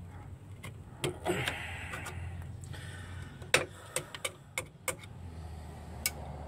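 Sharp metal clicks and clinks of needle-nose pliers and a steel brake spring against a drum-brake shoe and backing plate as the spring is stretched and hooked into place, about eight clicks with the loudest a little past halfway, over a low steady hum.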